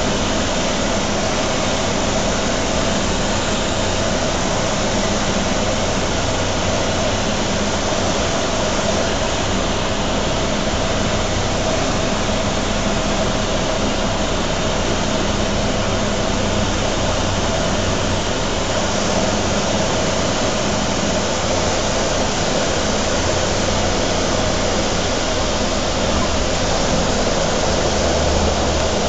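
Cessna Grand Caravan's single PT6A turboprop engine and propeller, heard inside the cabin as a steady drone mixed with airflow noise during the approach and landing. A deeper rumble joins in near the end as the plane rolls out on the runway.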